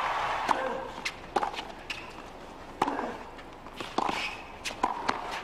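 Tennis ball being served and rallied on a hard court: sharp pops of racket and ball about every half-second to a second. Under them a crowd murmur dies down in the first second.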